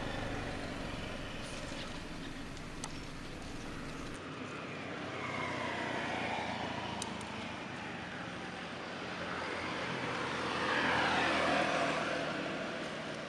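Passing motor-vehicle noise that swells and fades twice, once midway and louder near the end, over a steady outdoor background.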